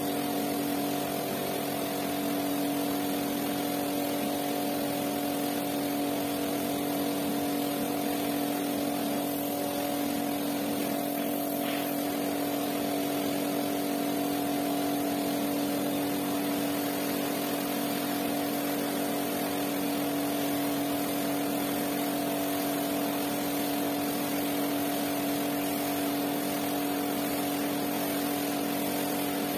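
Pressure washer running steadily: a constant motor hum under the hiss of the water jet spraying onto a soaked rug.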